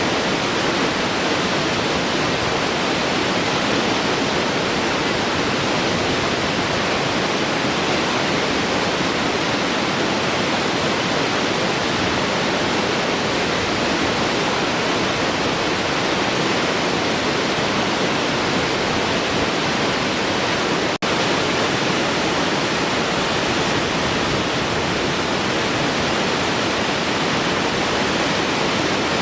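Large waterfall flowing in a steady, dense rush of water. It cuts out for an instant about two-thirds of the way through.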